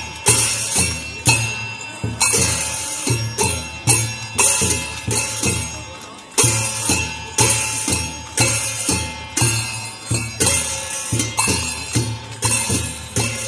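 Traditional Newar percussion music accompanying a masked dance: drum beats and ringing metal percussion, with bells or jingles, struck in a steady repeating rhythm.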